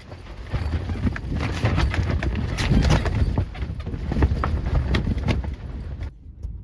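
Gusting wind rumbling on the microphone, with irregular flapping knocks mixed in; it cuts off suddenly about six seconds in.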